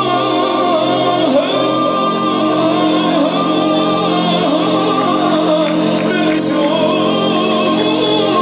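A male soloist sings a winding melody over a mixed choir holding long sustained chords, in a polyphonic choral arrangement of a traditional Moroccan song.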